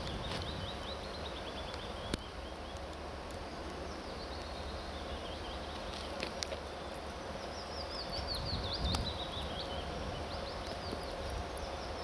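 A songbird singing a short phrase of quick notes that fall in pitch, repeated about four times, over a steady low rumble, with a sharp click about two seconds in.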